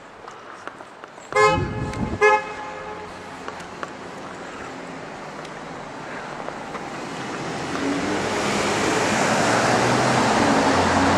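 Two short car-horn toots a little under a second apart, then a car approaching, its noise growing steadily louder.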